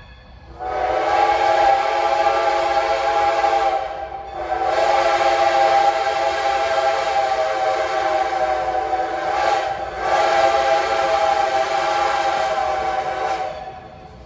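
Steam locomotive's chime whistle blown in three long blasts, a steady chord broken briefly about four seconds in and again near ten seconds.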